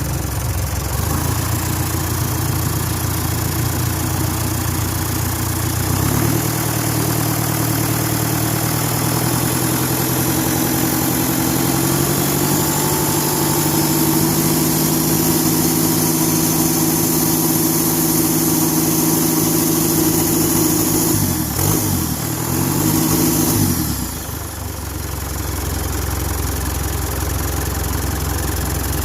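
Kia Carnival turbo-intercooled diesel engine running: idling, then held at raised revs from about six seconds in, with quick drops and rises in revs a little past twenty seconds before it settles back to idle.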